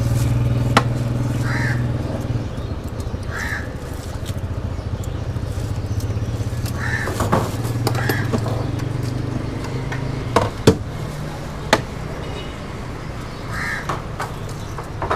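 Crows cawing, about five short calls spread over several seconds, over a steady low hum. A few sharp knocks are heard, two of them close together about ten seconds in.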